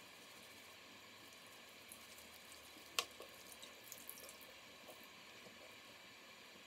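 Bathroom faucet running a thin, steady stream of water into the sink as a makeup brush is rinsed under it, faint overall. A single sharp click about three seconds in, with a few small ticks soon after.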